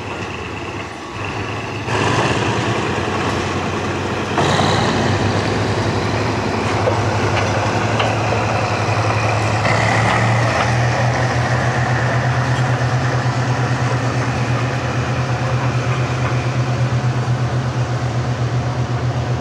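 Diesel train running with a steady low engine drone that grows stronger about halfway through, with a couple of sudden knocks in the first few seconds.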